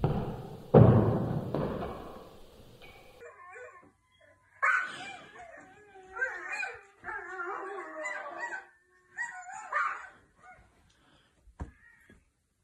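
A loud thud about a second in, then a puppy howling and whimpering in several bouts of wavering cries that rise and fall in pitch.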